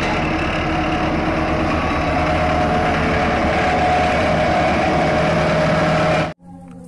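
Sakai single-drum road roller's diesel engine running steadily as the machine drives along a gravel road. The sound cuts off suddenly about six seconds in.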